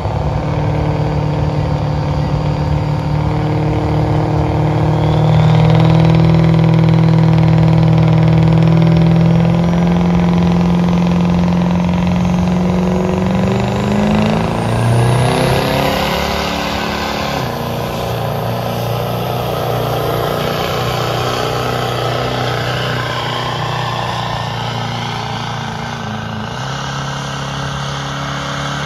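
Pickup truck engine held at high revs under heavy load while pulling a weight-transfer sled. The pitch climbs slowly at first, surges and breaks up around the middle, then settles back to a steady pull and dips slightly near the end.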